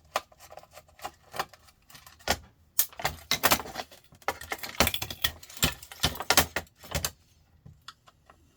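Small metal parts and a screwdriver clinking and rattling as a sandwich maker's casing and screws are worked apart by hand. Scattered clicks at first, then a busy clatter of knocks for a few seconds in the middle.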